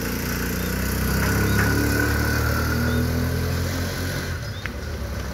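Engine of a motor vehicle passing close by in street traffic, a low hum that grows louder in the first few seconds and fades after about four seconds.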